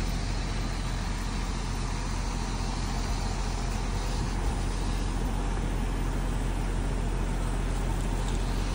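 Truck engine running steadily with a low, even drone, driving the truck-mounted hydraulic crane as it lowers its load.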